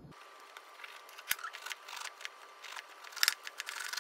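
Crisp crackling and scratching of a crusty sesame burger bun being handled and split open, with louder crackles about a second in and again near three seconds.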